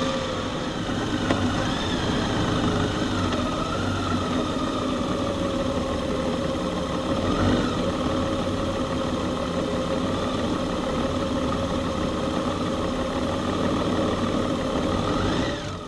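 Ride noise from a Honda Gold Wing GL1800 touring motorcycle cruising steadily: its flat-six engine running under road and wind noise, with a faint wavering whine. The sound fades out at the very end.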